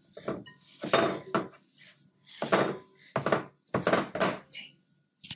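Hands mashing and kneading ground spruce grouse and bacon with seasoning in a glass bowl: a series of wet squishes and slaps, about one every half second to a second.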